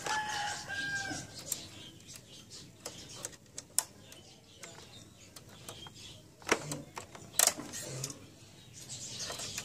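Scattered small plastic and metal clicks and taps from hands fitting the carriage encoder (CR) scale strip into the side frame of an Epson T60 inkjet printer, with two sharper clicks after about six and a half seconds.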